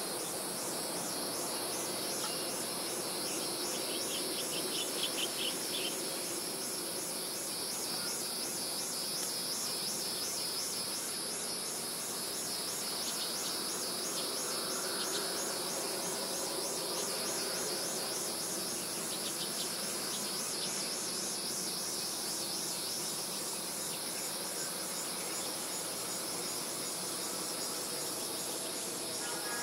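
Insects calling steadily in a rapid high pulsing trill with a steady high whine above it, over a constant background hum. A second, lower pulsing call joins briefly about four seconds in.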